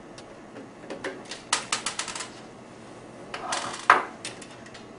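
Small metal clicks and taps of screws and a screwdriver on the sheet-metal shield over an HP LaserJet 1320's formatter board, as the shield's screws come out. A quick run of clicks comes about one and a half to two seconds in, then a short rustle ending in a sharper knock near four seconds.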